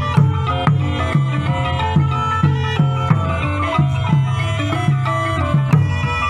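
Traditional Cambodian pinpeat ensemble music: a drum beats a steady pulse of about two strokes a second under pitched percussion and a reedy wind melody.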